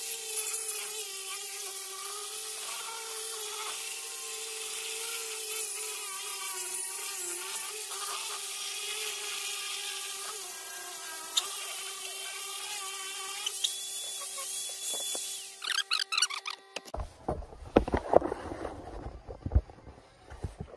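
Electric sander running on a wood slab, a steady whine over a bright hiss. About three-quarters through it stops, followed by scattered knocks and handling clatter.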